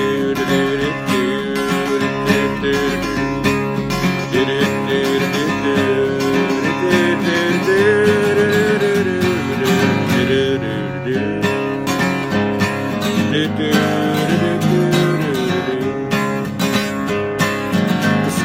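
Acoustic guitar strummed steadily in an instrumental break between verses of a folk-country song, with a wordless, wavering melody line held over the chords.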